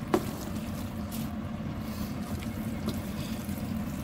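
Plastic spatula tossing sauced noodles in a metal pot, with a sharp knock of the spatula against the pot just after the start and another at the end, over a steady low hum.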